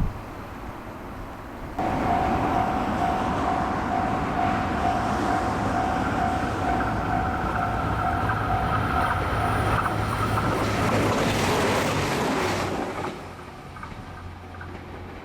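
KiHa 187 series diesel express train passing a level crossing at speed: a loud rushing of wheels on rail with a low engine hum, starting suddenly about two seconds in and dying away near the end. The crossing's warning bell dings about twice a second through most of the pass and stops before the train has gone.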